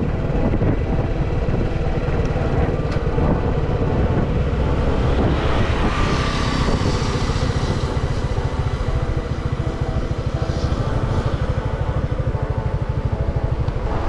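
Motorcycle engine running steadily at cruising speed, heard from the rider's seat, with wind and road hiss from tyres on a wet road.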